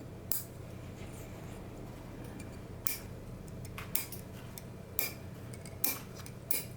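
Small magnets being worked out of a magnetic fidget toy, clicking and snapping sharply against metal about six times at irregular intervals of roughly a second.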